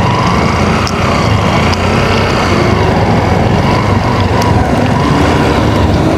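Loud, steady motor-vehicle engine and road noise, with engine pitch drifting slightly.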